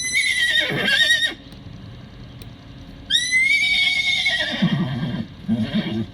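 Miniature horse whinnying twice in a high pitch. The first whinny ends about a second in. The second starts about three seconds in and breaks into a lower, stuttering tail near the end.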